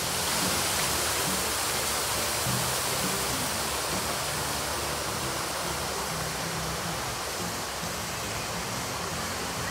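A steady rushing hiss that rises at the start and holds level throughout, with faint music beneath it.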